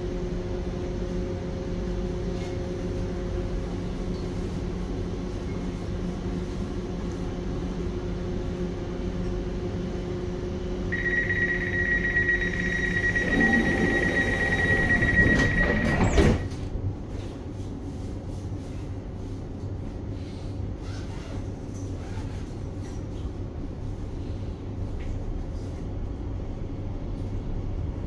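Elizabeth line Class 345 train doors closing: a steady electrical hum, then a high door warning tone for about five seconds while the doors slide shut, ending in a sharp thump about halfway through. A quieter hum with scattered clicks follows.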